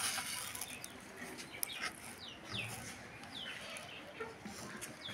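Young chicks peeping: a run of short, high peeps, each falling in pitch, repeated every half second or so, with a few faint clicks.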